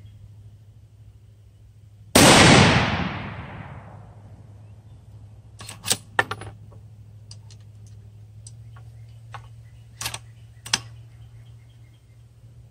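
A single .243 Winchester shot from a Savage bolt-action rifle about two seconds in, loud, with an echo that dies away over about two seconds. The load is a 39-grain Varget handload. A string of sharp metallic clicks follows as the bolt is worked.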